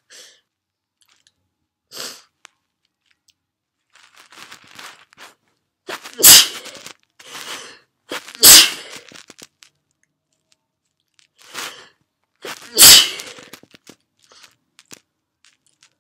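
A woman's wet sneezes: three loud ones, about two and four seconds apart, each preceded by softer, shorter sounds.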